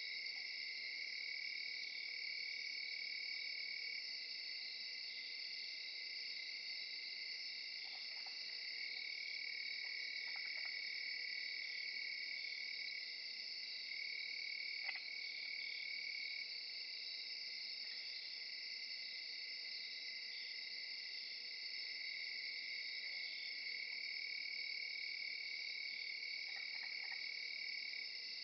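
Steady chorus of singing insects: several high, even pitches layered together. The lowest of them breaks off and comes back every few seconds.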